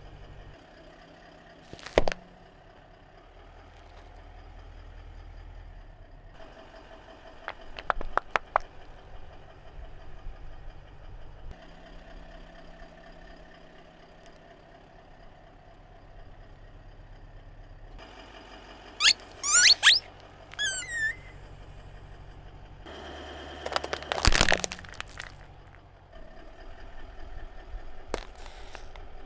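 A car tyre slowly crushing small rubber squeaky toys and plastic objects over a quietly idling engine: sharp cracks and clicks as pieces give way, a run of high falling squeaks as a squeeze toy is flattened about two-thirds of the way in, and a loud crack soon after.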